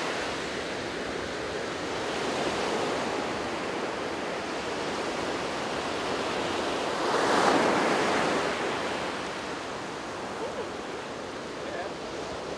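Ocean surf breaking on a sandy beach: a steady wash of waves, with one wave building and crashing louder about seven seconds in.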